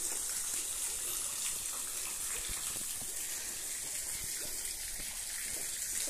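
Steady hiss of falling water: a waterfall running thin in the dry season, splashing into its pool.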